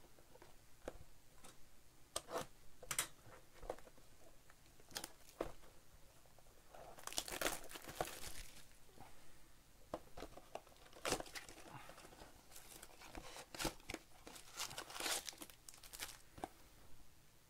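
Foil wrappers of 2024 Bowman baseball card packs crinkling and tearing open by hand, in a run of short, irregular crackles with a longer tear about seven seconds in.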